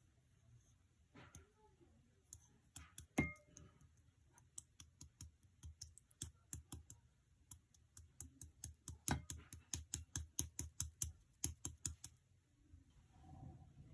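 Typing on a keyboard: quick, uneven clicks of keys for about eleven seconds, stopping near the end, followed by a soft rustle.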